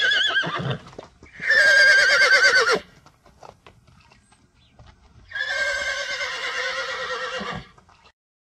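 Horse whinnying: three long neighs with a quavering pitch. The first trails off about a second in, the loudest follows straight after and lasts about a second and a half, and a third comes after a pause and lasts about two seconds.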